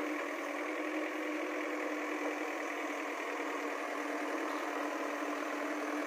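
JCB 3DX backhoe loader's diesel engine running steadily at a constant pitch while the backhoe arm works.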